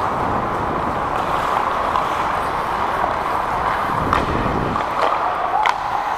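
Hockey skate blades gliding and scraping on rink ice with a steady hiss, over a low rumble of air on a helmet-mounted microphone. A couple of sharp clacks come near the end.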